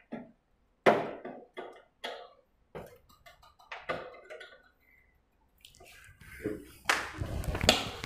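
A spanner clicking and clinking against the nut and bolt at the joint of an aluminium door closer's arms as it is tightened, a dozen or so separate metal clicks. From about six seconds in, a louder, denser rustle of handling takes over.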